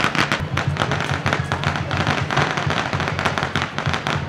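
Firecrackers going off in a rapid, continuous string of pops.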